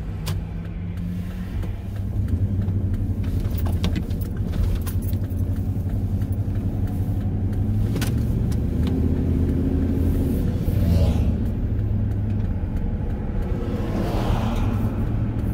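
Pickup truck's engine and road noise heard from inside the cab as it pulls away and drives off: a steady low drone that grows louder about two seconds in, with a few light clicks and rattles in the cab.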